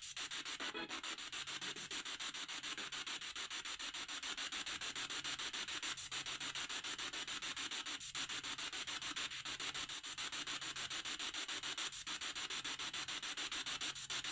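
Spirit box scanning through radio stations: a steady hiss of static chopped into rapid, even pulses as it sweeps, used as a question-and-answer session with spirits.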